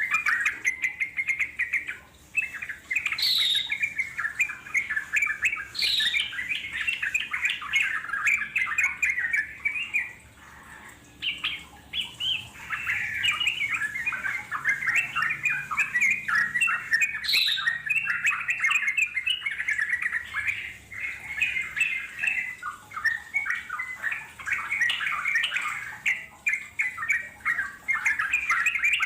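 Yellow-vented bulbul (trucuk) giving a long, rapid, bubbling chatter (the "ngeropel" rolling song), in long runs broken by a short pause partway through, with a few sharp rising notes.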